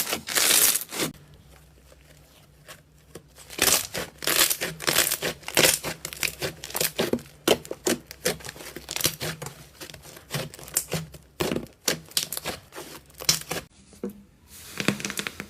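Slime being played with by hand: an irregular run of short sticky pops and squelches, pausing for about two seconds shortly after the start, then starting up again.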